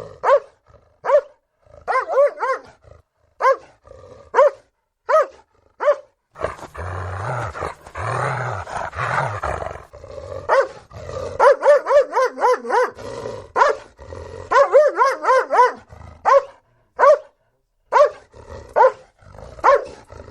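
A Doberman barking in single and paired barks, breaking into a few seconds of rough growling near the middle. It then gives a quick run of barks before the barks space out again.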